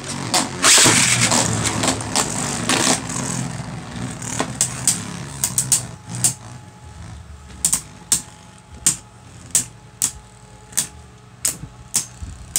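Two Beyblade Burst spinning tops whirring and scraping across a plastic stadium floor, loud at first, just after launch. It then settles to a steady spinning hum broken by sharp plastic clacks as the tops knock together, about one or two a second.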